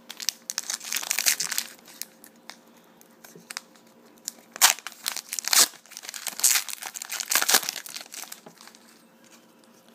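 A foil trading-card pack being torn open and its wrapper crinkled in the hands. It comes as irregular bursts of crackling and tearing, loudest a little past the middle.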